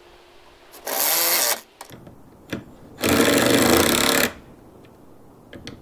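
Ryobi cordless driver running in two short bursts on the screws of a gate's bottom hinge, the second burst longer, with a click or two between them.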